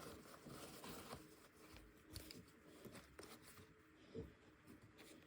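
Near silence, with a few faint soft rustles and small taps, one slightly clearer tap about four seconds in.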